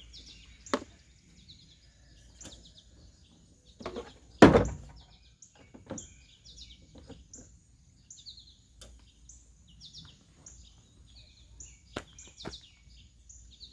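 Small birds chirping over and over, many short high chirps. A few sharp knocks and one louder thump about four and a half seconds in.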